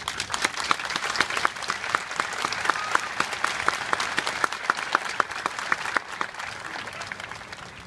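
Crowd applauding, with a few close, sharp individual claps standing out; the clapping is fullest in the first few seconds and tapers off toward the end.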